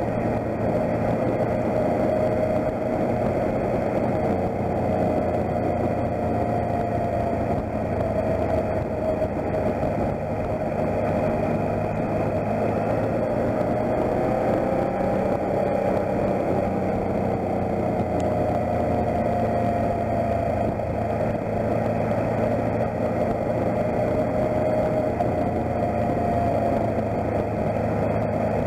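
Motorcycle engine running at a steady cruising speed, its note rising and falling gently through the bends, over a continuous rushing noise of wind and road.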